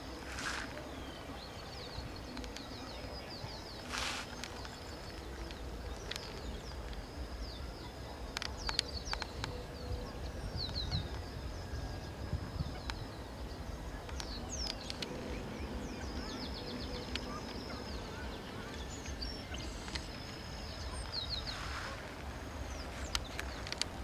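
Outdoor ambience: a low, uneven wind rumble on the microphone with a thin, steady high trill and repeated short high chirps from small birds or insects, plus two brief hissing gusts in the first few seconds.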